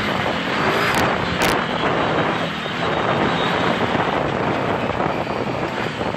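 Can-Am Maverick 1000R Turbo XDS side-by-side driving over a rough dirt track, its turbocharged V-twin engine running at a steady pace, with wind buffeting the microphone. Two sharp clicks come about one and one and a half seconds in.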